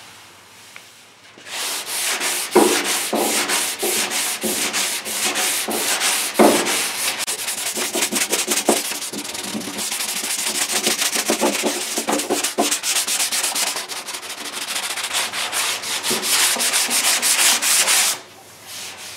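Quick back-and-forth hand sanding with a sanding block on the epoxy-primed steel fender, scuffing the cured primer so body filler will grip. The strokes start about a second and a half in and stop shortly before the end.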